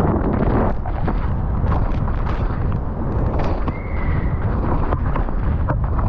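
Downhill mountain bike ridden fast down a muddy, rain-soaked track: wind rushing over the helmet camera's microphone, tyres churning through wet mud, and a steady run of knocks and rattles from the bike over bumps, with a brief high tone about four seconds in.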